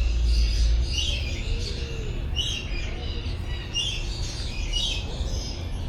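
Several small birds chirping in short, high bursts, roughly once a second, over a steady low rumble that is strongest in the first second.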